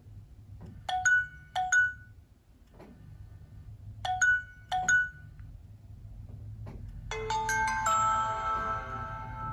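Nokia C7-00 ringtone playing: two pairs of short, bright bell-like notes, then a sustained chord of ringing tones from about seven seconds in.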